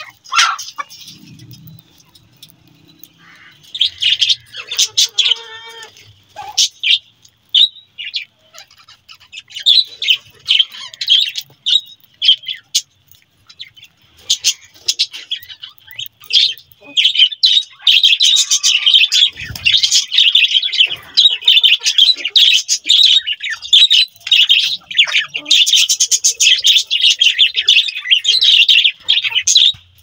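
A flock of budgerigars chirping and chattering, scattered calls at first, then a dense, continuous chatter through the second half.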